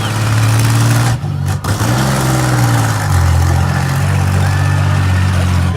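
Demolition derby minivan engines running and revving, loud, with a brief dip about a second and a half in.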